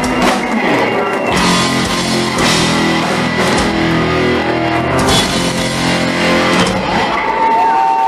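Heavy metal band playing live: distorted electric guitar, bass guitar and drum kit. From about a second and a half in, a loud sustained full-band passage with repeated cymbal crashes, thinning out near the end.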